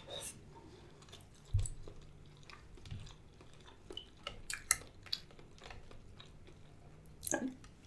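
Close-miked eating sounds from a seafood boil meal: soft chewing with scattered wet mouth clicks and smacks, most in a cluster about halfway through.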